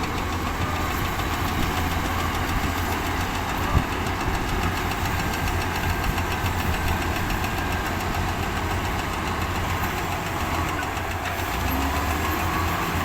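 Diesel engine of a heavy earthmoving machine running steadily, with one sharp knock a little under four seconds in.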